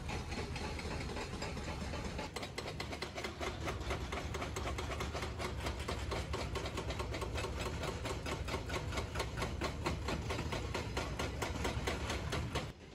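Hydraulic rock breakers on excavators hammering rock in rapid, evenly spaced blows over a low rumble of diesel engines. The hammering starts a couple of seconds in and cuts off near the end.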